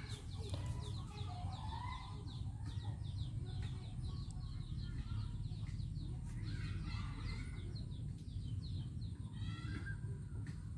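Birds calling in runs of short, falling chirps and clucks, over a low steady rumble.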